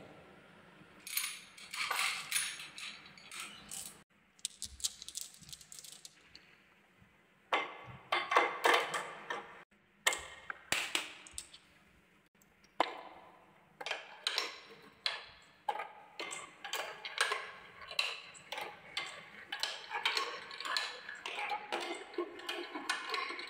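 Marbles rolling and dropping down the zigzag slopes of a handmade wooden marble run, clacking and knocking on the wooden tracks. The clicks come in clusters and grow into near-continuous clatter over the last ten seconds.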